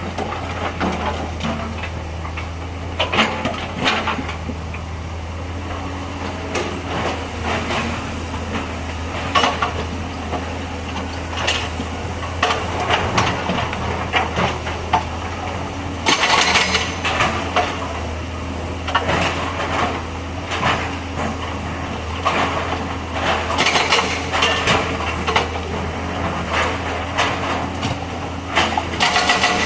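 Hydraulic excavator's diesel engine running steadily, with repeated short metallic clanks and rattles from the machine at work, coming in clusters.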